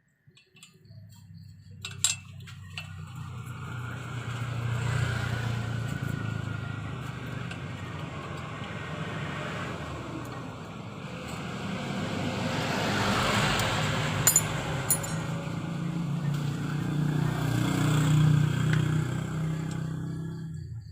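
Isuzu Giga truck's diesel engine running, with the revs swelling and easing a few times. It starts about a second in and cuts off just before the end. A few sharp metallic clicks come about two seconds in and again near the middle.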